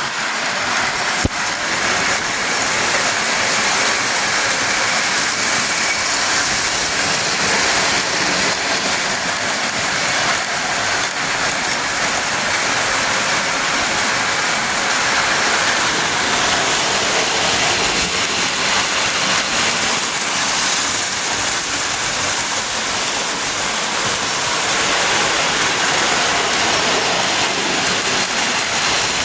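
Lionel post-war O-gauge steam locomotives and tinplate passenger cars running on toy track: a steady rolling train noise.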